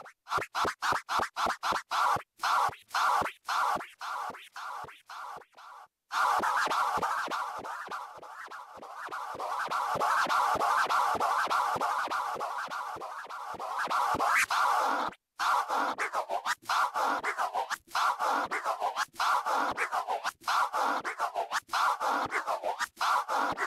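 Vinyl scratching of a scratch practice record on a turntable, cut through a Numark Scratch mixer's Mini Innofader crossfader. For about the first six seconds and again from about fifteen seconds in, the sound is chopped on and off by rapid crossfader cuts, several a second. In between is a stretch of more continuous back-and-forth scratching.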